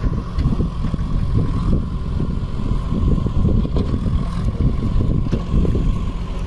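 Small fishing boat's outboard motor running steadily, a low rumble with a thin steady whine above it, a few faint knocks through it.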